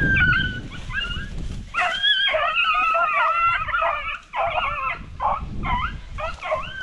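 Hunting beagles baying in high yelps. Several voices overlap from about two seconds in, then it breaks into a string of short, rapid yelps: the pack giving tongue while hunting rabbit.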